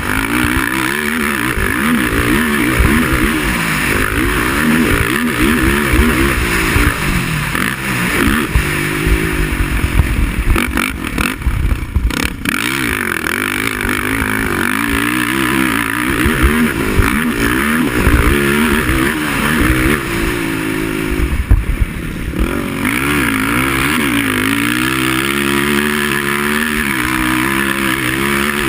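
Racing quad (ATV) engine revving hard and repeatedly, its pitch rising and falling every second or two as the rider accelerates and backs off.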